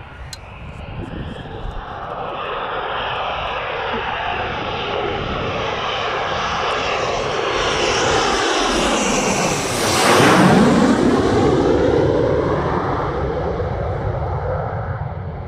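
Military jet on landing approach passing close by: the jet engine noise swells steadily, peaks with a sweeping, phasing rush as the aircraft goes past about ten seconds in, then fades away.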